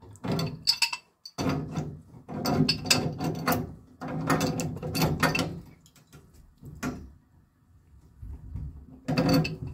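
Pipe wrench working the brass union nut of a water heater's mixing valve tight: metal grating and creaking in several strained pulls, a lull, then one more pull near the end.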